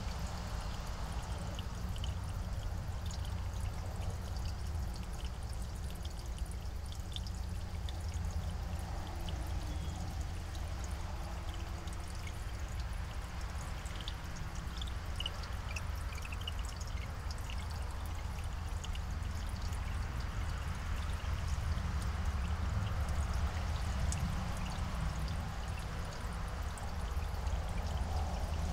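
Steady outdoor background noise from a security camera's microphone: an even low rumble with a hiss over it, and a few faint short high chirps now and then.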